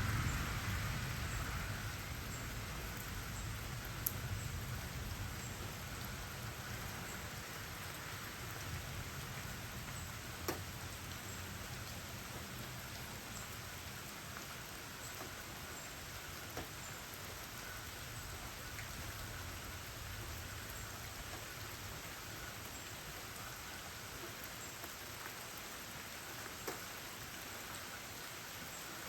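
Steady rain falling, a continuous even hiss, with a few sharper drop taps standing out now and then.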